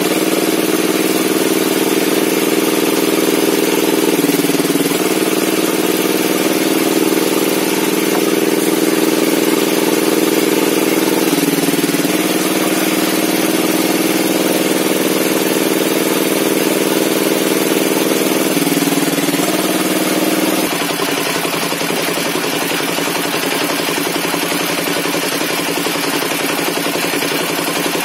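Circular table saw running steadily with a strong hum. Its pitch sags briefly three times as the blade takes load in the wood. About two-thirds through, the steady tone drops away, leaving a rougher, slightly quieter running sound.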